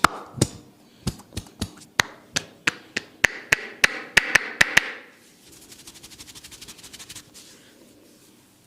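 Percussive massage strikes: sharp taps that quicken from about two to about five a second and grow louder. They are followed by a lighter, fast patter of about ten taps a second lasting under two seconds.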